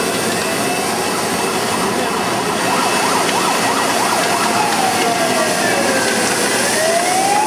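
An emergency vehicle's siren wailing, its pitch rising and falling slowly, with a short run of rapid up-and-down yelps about three to four seconds in. Under it is the steady noise of a crowded street.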